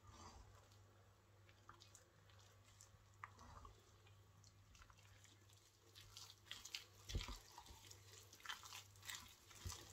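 Wooden spoon stirring thick, wet fruit cake batter in a metal saucepan: faint squelches, scrapes and soft knocks against the pan, sparse at first and busier and louder in the second half.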